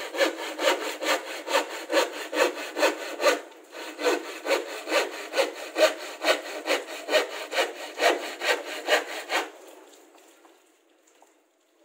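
Handsaw cutting through a plywood sheet in quick, even back-and-forth strokes, about three a second, with a short break about three and a half seconds in. The sawing stops about nine and a half seconds in.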